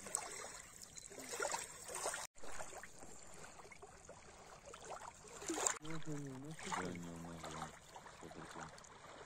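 Small lake waves lapping and splashing against a stony shoreline, in a run of short wet splashes. A voice sounds briefly around six seconds in.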